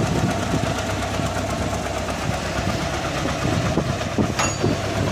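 An engine idling steadily, with one sharp click that rings briefly near the end.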